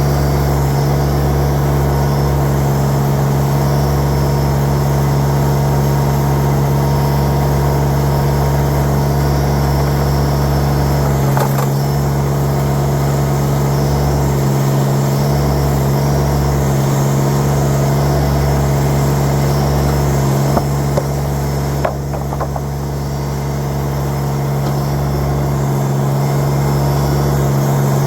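LS MT1-series compact tractor's diesel engine running at a steady speed, with a few sharp knocks near the middle and again later on.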